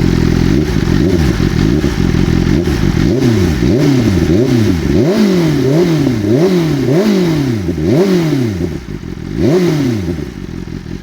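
A hot 2025 BMW M 1000 R's inline-four revved through an SC Project CR-T exhaust with its exhaust valve disconnected, so the system runs fully open. A couple of slower revs, then a rapid string of throttle blips, the pitch climbing and dropping roughly every three quarters of a second, one last blip, and back down to idle near the end.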